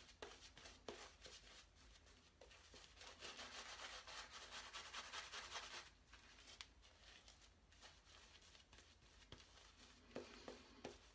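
Black badger shaving brush swirling lather over a stubbled face, a faint, soft wet rubbing that is stronger for a few seconds in the middle.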